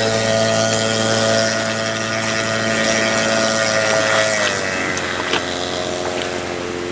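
Boat engine running steadily, its pitch easing down about four and a half seconds in as the throttle comes off.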